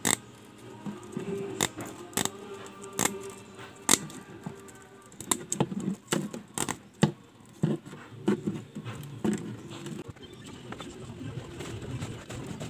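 Small scissors snipping through fine wire mesh: a string of sharp metallic clicks, about one or two a second, thinning out near the end.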